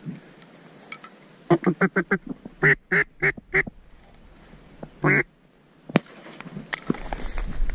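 Mallard-style duck quacking: a quick run of short quacks, then four longer quacks about a third of a second apart, and one more long quack about two seconds later.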